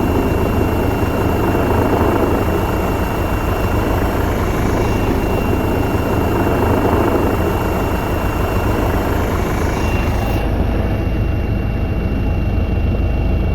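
Helicopter hovering overhead: the rotor beats in a fast, steady low throb under a continuous engine whine and rush.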